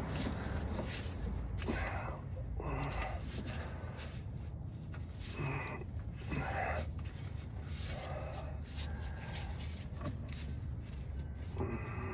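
A man breathing heavily with effort, a few loud breaths and snorts at irregular intervals, while straining to push radiator hoses into place.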